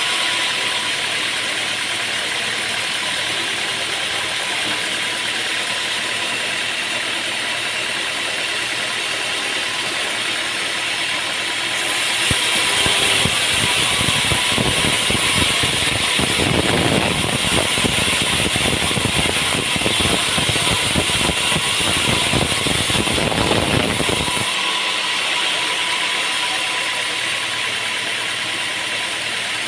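Sawmill running steadily. About twelve seconds in it turns louder and rougher for about twelve seconds as the blade cuts through a log, then settles back to its steady running.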